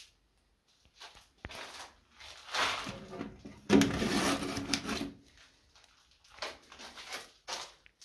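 Handling the steel door of an old siren control cabinet: a series of scrapes and rubs on sheet metal, the loudest lasting about a second from just under four seconds in, then shorter rustling noises as a plastic-sleeved document is pulled from the door's holder near the end.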